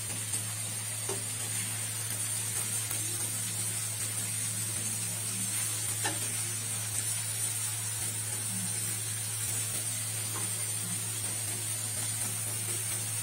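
Steady background hiss with a low hum and a thin high whine under it, and a few faint clicks.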